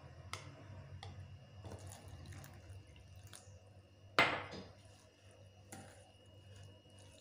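A metal spoon clinks against a stainless steel bowl while flour and grated beetroot are mixed. About four seconds in, water is poured in from a glass with a short splash, the loudest sound here, to loosen the dry mix into batter.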